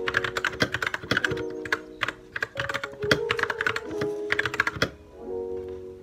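Keystrokes on a Royal Kludge RK61 mechanical keyboard: quick runs of clicky key presses with short breaks between them and a longer pause near the end, over soft background music.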